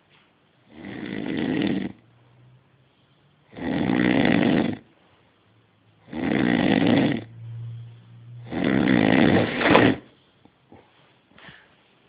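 Snoring: four loud snores about two and a half seconds apart, each lasting about a second, with a faint low hum between some of them and a few small sniffs or clicks near the end.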